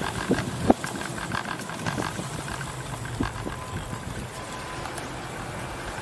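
Street traffic: motor-vehicle engines running steadily, with scattered short clicks and knocks, the sharpest about a second in.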